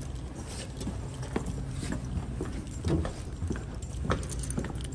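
Footsteps on a hard floor, a sharp knock about every half second, over a steady low hum.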